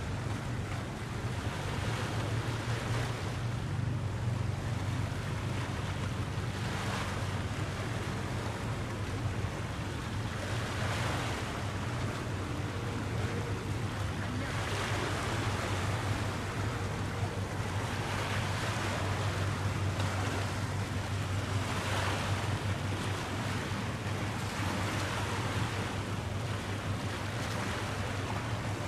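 Water waves washing in about every three to four seconds over a steady low hum, with wind noise on the microphone.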